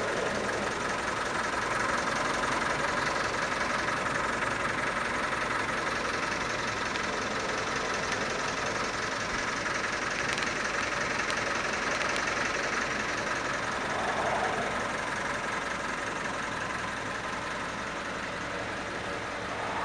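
Fiat 615 N engine idling steadily, heard from inside the cab.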